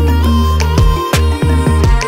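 Background music: a track with heavy sustained bass notes and regular drum hits under a melody.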